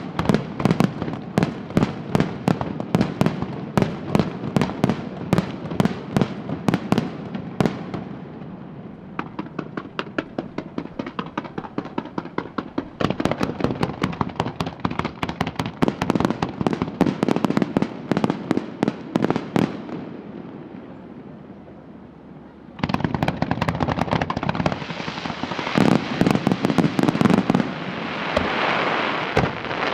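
Fireworks display: rapid volleys of shell bursts and bangs, several a second. They thin out for a few seconds past the middle, then a dense, loud barrage starts suddenly about three-quarters of the way through.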